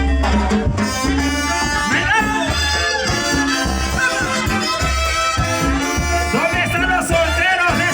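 Live tropical dance orchestra playing an instrumental passage: a pulsing bass line under brass and shaken percussion.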